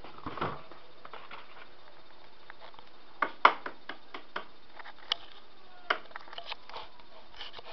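A few sharp taps and clicks of eggs and an egg carton being handled at a kitchen counter, the loudest about three and a half seconds in, with softer knocks around it.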